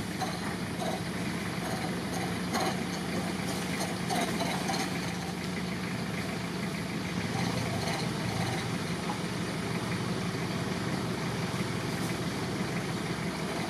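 Steady low motor hum, like an engine idling, with a few faint short sounds in the first few seconds.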